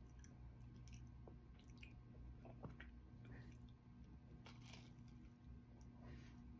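Faint chewing and biting of a soft pandesal bread roll, small scattered crackles and clicks, over a low steady hum.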